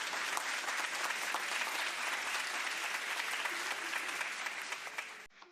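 Crowd applause, many hands clapping at an even level, cut off abruptly about five seconds in with a short fading echo.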